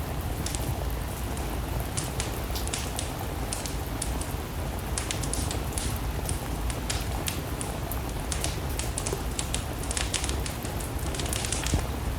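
Steady rain with a crackling wood fire: a constant low rain noise under frequent sharp pops and crackles from the burning logs.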